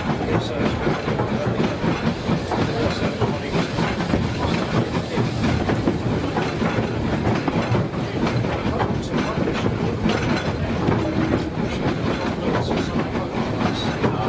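Heritage light-railway train running along the track, its wheels clattering steadily over the rail joints.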